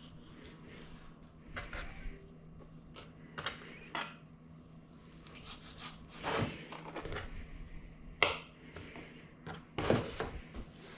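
Kitchen utensils and dishes knocking and clinking as food is prepared, a handful of separate clatters with the sharpest near the end, over a low steady hum.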